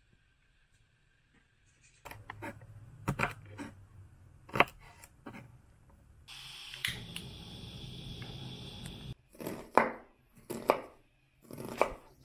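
Kitchen knife chopping through fresh green beans and onion onto a wooden cutting board: separate sharp chops about a second apart, starting after two seconds of near silence. A steady hiss runs for about three seconds in the middle.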